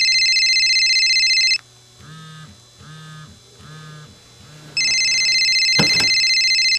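Telephone ringing with an electronic trill: about two seconds of ring, a gap holding four short, lower buzzy tones, then a second two-second ring near the end. A couple of sharp clicks sound during the second ring.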